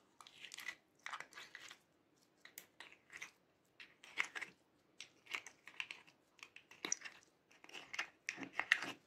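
Thick orange slime being scooped and pulled by hand out of a plastic compartment box, squelching and crackling in irregular bursts about once a second, loudest near the end.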